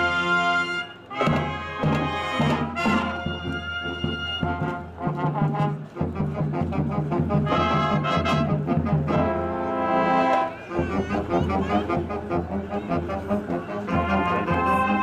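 School marching band playing, trumpets and trombones carrying held notes over a steady low drum beat, with short breaks between phrases.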